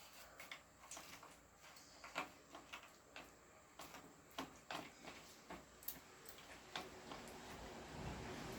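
Faint eating sounds: irregular small clicks and smacks from mouth and fingers, a few a second, with a low hum rising near the end.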